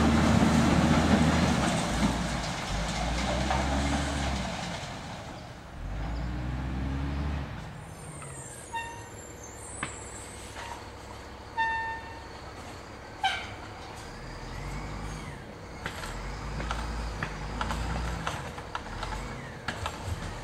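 Diesel garbage trucks working: a Cummins L10 engine pulls away loudly over the first few seconds and fades, then another truck's engine runs more quietly, with a few short high beeps about halfway through and a couple of sharp metallic clanks.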